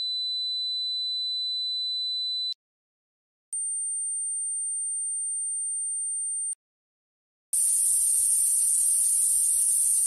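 Simulated tinnitus sounds played one after another. First a steady 4000 Hz pure tone lasts about two and a half seconds; after a short gap a higher, steady 7500 Hz tone lasts about three seconds. From about seven and a half seconds in comes the louder 'buzzing' tinnitus sample, a high hiss-like buzz.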